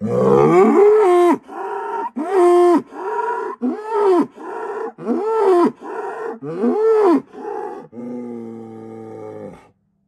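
Angus herd bull bellowing: a long, loud opening bellow, then a rhythmic run of about eight short calls, each rising and falling in pitch, and a lower, drawn-out bellow near the end. These are territorial calls, a herd sire warning off the neighbouring bulls.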